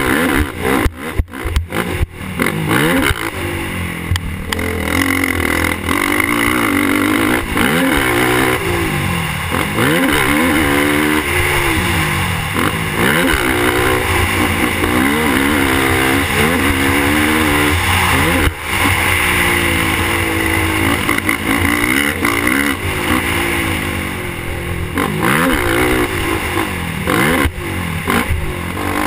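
Suzuki LTR450 quad's single-cylinder four-stroke engine ridden hard on a motocross track, heard from the rider's helmet: the revs climb again and again through the gears and drop off the throttle for corners and jumps. A few sharp knocks come about a second in.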